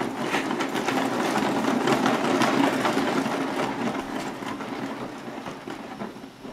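Lazy susan turntable spun by hand, its bearing rumbling steadily as it turns. The rumble fades away as it slows down over the last couple of seconds.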